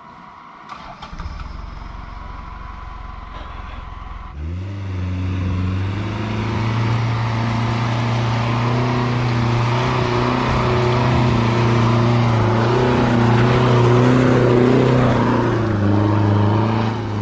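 Off-road 4x4's engine pulling away about four seconds in, after a low rumble, then running hard at steady revs as the vehicle climbs a steep dirt slope.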